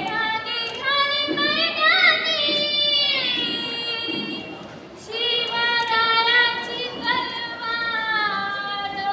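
Children singing a slow song in long held notes that glide in pitch, with a pause of about a second near the middle before the next phrase.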